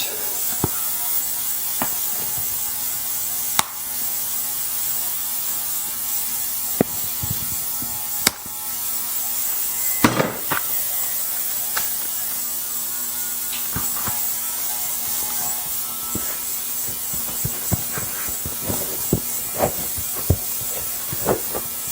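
A bicycle tire being worked onto its rim by hand, with scattered sharp clicks, taps and rubbing, a few louder knocks among them. Under it runs a steady mechanical hum with a hiss.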